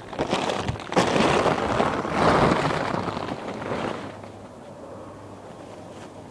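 A strong gust of wind buffeting the microphone in a gale. It swells about a second in and dies down to a steady low rush after about four seconds.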